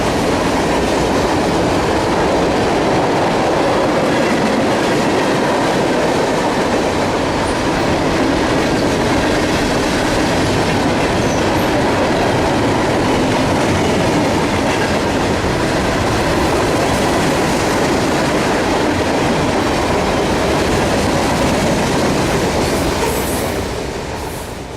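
Freight train cars rolling steadily past, their wheels running on the rails in a continuous loud rumble that fades out near the end.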